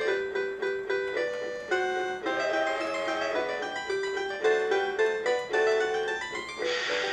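A Mr. Christmas Santa's Train Express musical toy train plays an electronic holiday tune, a melody of short, evenly paced notes. A hiss joins near the end.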